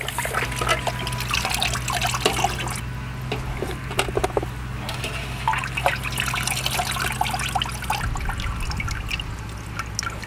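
Water dripping and splashing in a steel basin as washed raw chicken pieces are lifted out of it by hand and laid on a steel plate. The splashes and drips are small and irregular and keep coming throughout.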